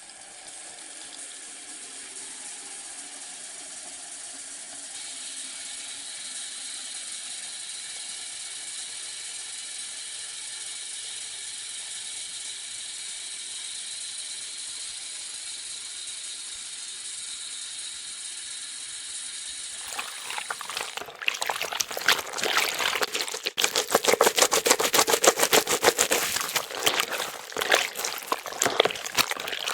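Bathroom sink faucet running in a steady stream for about twenty seconds, then the sound turns suddenly louder and choppy with irregular splashing into the basin.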